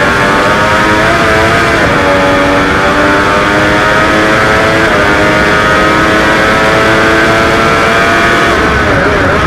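Triumph Daytona 675R's inline three-cylinder engine at racing revs under hard acceleration, heard from the bike itself. The pitch steps at gear changes about two and five seconds in and shifts again near the end.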